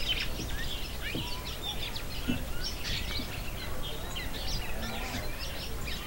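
A flock of small wild birds chirping and calling at once: a dense, overlapping chatter of short high chirps and quick sweeps.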